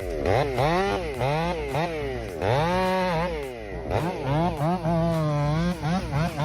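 Stihl MS500i two-stroke chainsaw revving up and down repeatedly as the throttle is worked, held briefly at high speed about five seconds in.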